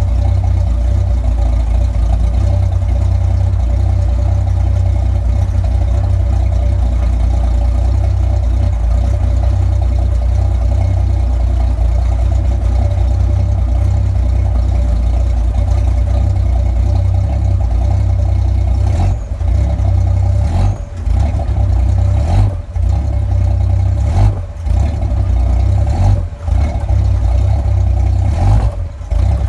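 Rebuilt Chevy 292 inline-six with a mild cam running near idle, its exhaust heard through an old Flowmaster 40 muffler. It is running way too lean, with the idle mixture screw set far too rich-out. From about two-thirds of the way through, the note turns uneven, dipping and picking up again several times.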